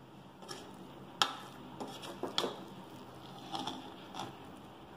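Metal ladle stirring and scooping cooked rice in a metal pressure cooker pot, with several sharp clinks and knocks of metal on metal, the loudest about a second in.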